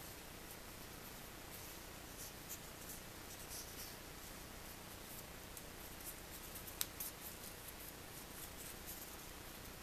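Faint crinkling and creasing of a small strip of origami paper being folded by hand: a scatter of soft crackles, with one sharper click about seven seconds in, over a steady hiss.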